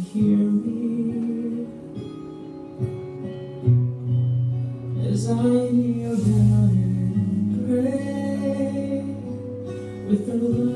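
A song with a singing voice holding long notes over guitar accompaniment.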